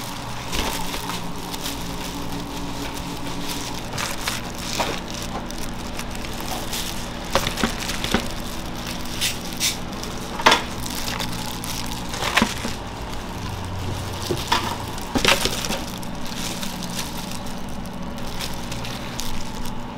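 Food-preparation work: irregular sharp clicks and knocks over a steady machine hum.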